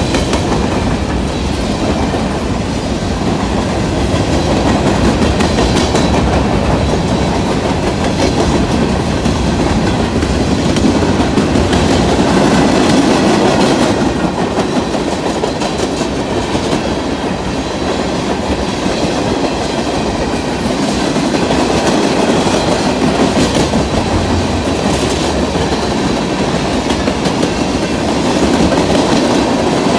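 A train rolling past, its wheels clattering steadily over the rail joints.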